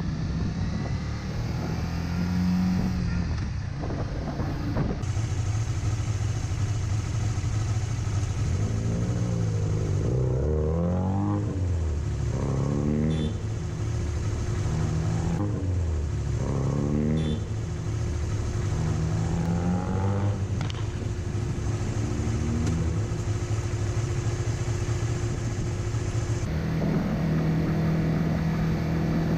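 Motorcycle engine pulling through the gears: its pitch climbs and drops back at each shift, several times in a row, over wind noise on the microphone.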